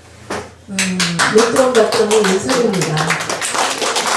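Audience applauding, with voices calling out over the clapping for the first couple of seconds.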